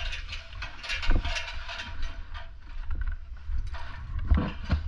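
Irregular clicking and rattling close to the microphone over a steady low rumble, with no engine running.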